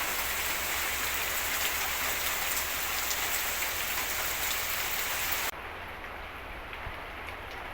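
Steady rain falling, a dense hiss with scattered drops ticking. About five and a half seconds in it abruptly turns quieter and duller.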